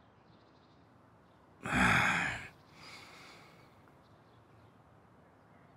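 A person sighs once, about two seconds in, and breathes out more faintly just after. Otherwise there is only quiet room tone.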